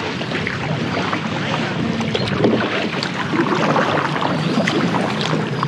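Water splashing and sloshing around a kayak being paddled, a busy run of small splashes.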